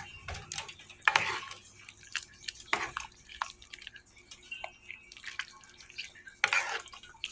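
Large metal spoon stirring chicken pieces, bell pepper and onion in a pot of thin gravy: wet slops and drips with irregular clinks and knocks of the spoon against the pot.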